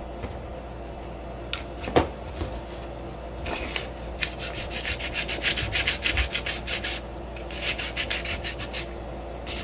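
Sheet of 220-grit sandpaper rubbed by hand over a lightsaber hilt in rapid back-and-forth strokes, in two runs with a short pause between, distressing the finish. A single sharp knock comes about two seconds in.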